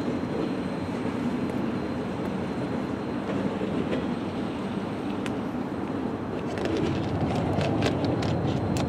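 Freight train rolling slowly away over the rails: a steady low rumble, with a run of sharp clicks and ticks in the last few seconds.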